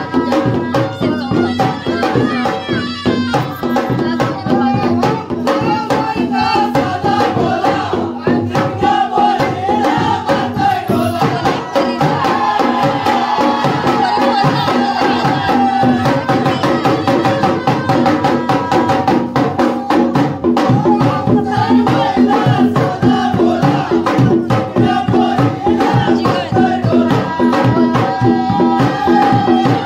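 Traditional Indian folk music with fast, dense drumming and a wavering melody line over it.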